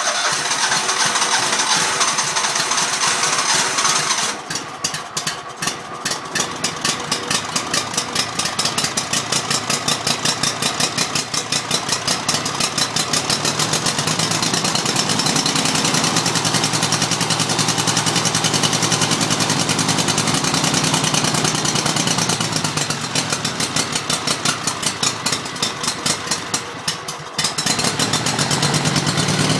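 Dixon mower's engine running just after a hard start, with an uneven, pulsing beat and a rough sound. Near the end it dips for a moment, then settles into a steadier, lower run.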